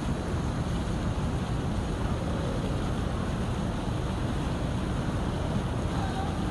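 Fountain water jets splashing steadily into a shallow pool, with a low, fluttering wind rumble on the microphone.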